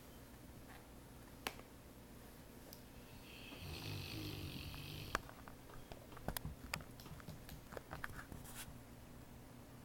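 A sleeping pet snoring: one faint, drawn-out snore of about two seconds a few seconds in, followed by a scatter of small sharp clicks.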